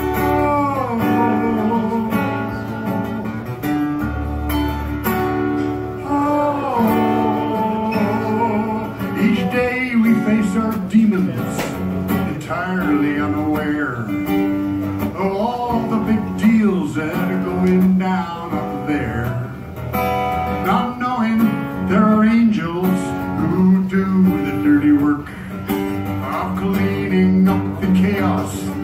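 Live solo acoustic guitar, strummed, playing an instrumental passage with a melody line gliding over the chords.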